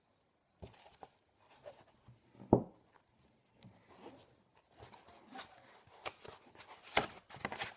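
Handling of a cardboard box and its foam packaging: scattered rustles, taps and clicks, with one louder knock about two and a half seconds in and a sharp click near the end.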